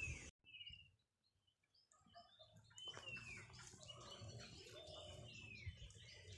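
Faint bird calls, a short downward-sliding whistled note repeated every couple of seconds. The sound drops out completely for about a second and a half near the start.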